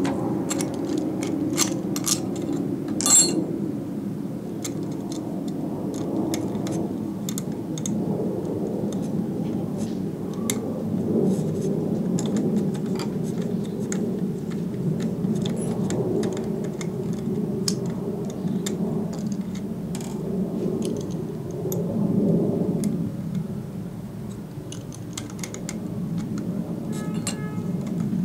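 Metal parts of a sharpening jig's blade holder clicking and clinking as its clamp is loosened and adjusted by hand and with a screwdriver, scattered sharp clicks with the loudest about three seconds in. A steady low rumble runs underneath.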